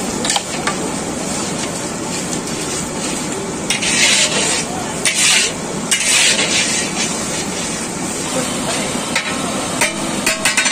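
Long metal ladle stirring chicken curry masala in a large iron kadai, the food sizzling steadily as it fries. There are louder swishes of stirring about four, five and six seconds in, and a few sharp knocks of metal near the end.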